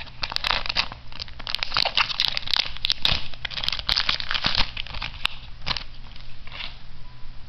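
Foil Weiss Schwarz booster pack wrapper crinkling as it is torn open: a dense run of crackles that thins out after about five and a half seconds, with a couple of last rustles near the end.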